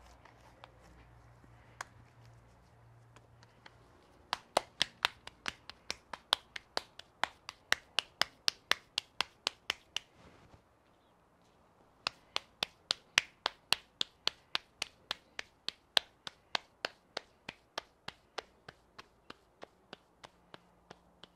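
Hands patting a ball of masa into a tortilla by hand, clapping it back and forth between the palms in quick sharp slaps, about four or five a second. There are two runs of patting with a short pause between them.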